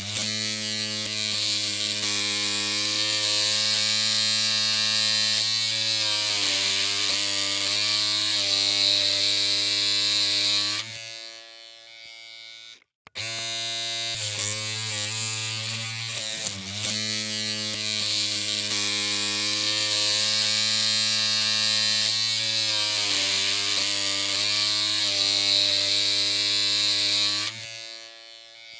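Electric hair clippers running with a steady buzzing hum. The hum drops away about eleven seconds in and cuts out briefly, then starts again and runs until it fades near the end.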